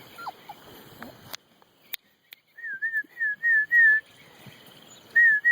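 A puppy whimpers briefly, then a run of short, high whistled notes comes five times in quick succession, pauses, and repeats three or four more times near the end; the whistled notes are the loudest sound.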